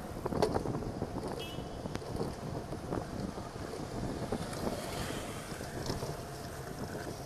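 Wind rushing over a bicycle-mounted camera's microphone while riding, with tyre and road noise and occasional clicks and knocks from the bike.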